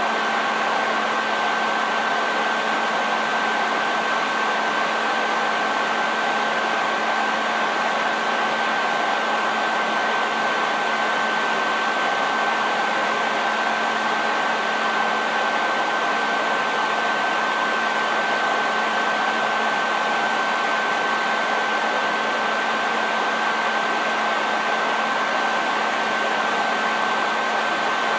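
Hair dryer running steadily: an even rush of blown air with a constant motor hum and a thin high whine.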